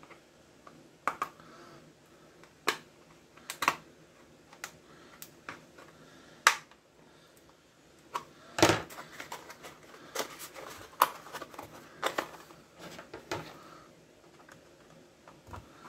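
Hard plastic casing of a small electronic ghost toy being pried apart: irregular sharp clicks and snaps as its clips and plastic give way.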